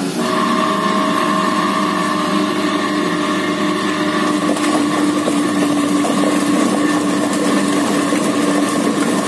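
Motor-driven chicken-plucking machine running steadily, with a constant mechanical hum and whine that comes in at the very beginning.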